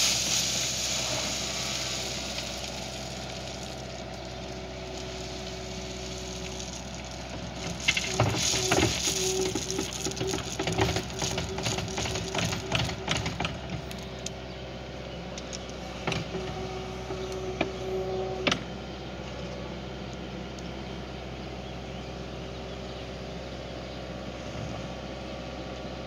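Skid steer engine running steadily. A rush of gravel pours from the bucket right at the start, and stones and steel clatter and scrape for about ten seconds in the middle while the machine works the gravel pile.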